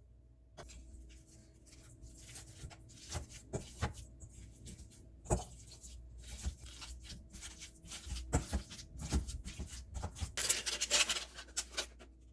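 Kitchen food-prep handling noises: a run of irregular light taps, clicks and scrapes, with a denser stretch of scraping or rustling about ten seconds in, over a faint steady hum.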